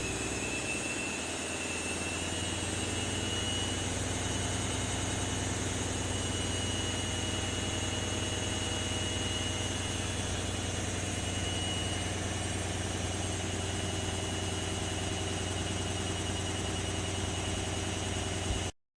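Candy Activa washing machine running steadily: a continuous motor hum with a high whine that rises a little over the first few seconds and then holds. The sound cuts off suddenly near the end.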